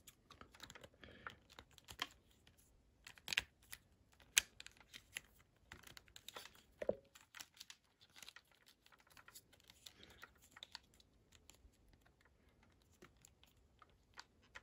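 Scattered light plastic clicks and taps as the articulated plastic fingers of a large Haslab Marvel Legends Sentinel figure are bent around a smaller Wolverine action figure. A few sharper clicks come about three and a half and four and a half seconds in.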